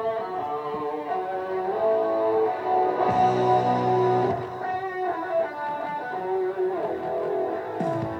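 Guitar-led music played over the public-address loudspeakers.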